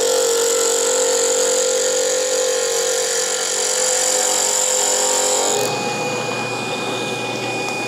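A wood lathe spinning a stabilized curly mango pen blank while a gouge cuts it, a steady hiss of the cut over the hum of the machine. About five and a half seconds in the cutting stops as the tool comes off the wood, leaving the lathe running with a thin steady whine.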